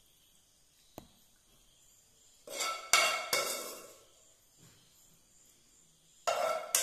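A metal serving spoon clinking and scraping against a stainless steel cooking pot as chicken masala is scooped out. There is a single sharp tap about a second in, a loud run of clinks a little later, and another short burst near the end.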